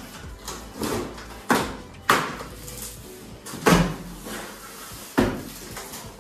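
About four sharp knocks and thumps, a second or so apart, from a large cardboard TV box and its packing being handled.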